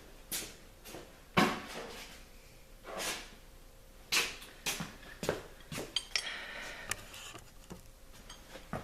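Camera being set down on a hard surface, followed by a string of separate knocks and clatters from tools and parts being handled, with a short scrape about six seconds in.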